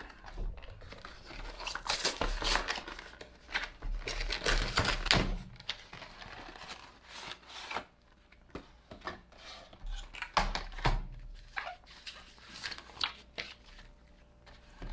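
Packaging of a Pokémon card battle deck being torn and crinkled open, dense tearing and rustling with sharp cracks for about the first half. After that come sparser clicks and rustles of the box and its contents being handled.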